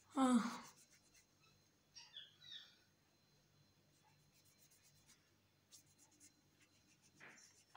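A wipe rubbing over a smartphone's glass screen in short scratchy strokes, with small birds chirping a few times. A loud falling call sounds right at the start.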